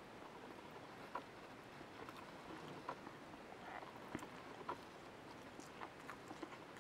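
Faint, scattered light clicks of a metal spoon against a plate as it scoops fried rice.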